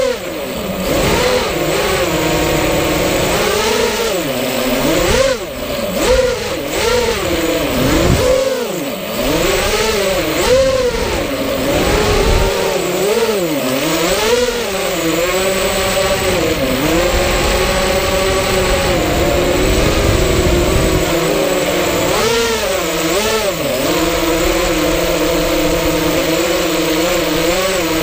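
FPV racing quadcopter's brushless motors and propellers whining, their pitch rising and falling over and over with the throttle, picked up by the camera on board the drone.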